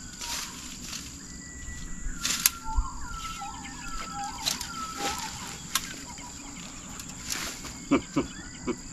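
A rake scraping and knocking through dry grass and piled debris in scattered strokes. A bird sings short chirping phrases in the first half, over a steady high insect buzz.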